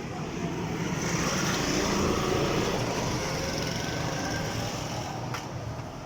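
A road vehicle passing by, its engine and tyre noise growing louder for about two seconds and then fading away. A single sharp click comes near the end.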